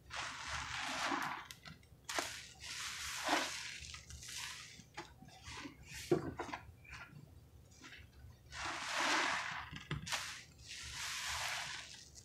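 Soapy sponges being squeezed by hand in a basin of creamy pine-cleaner suds: wet squelching and hissing foam in bursts of about a second each, about six times, with a few sharp wet clicks between.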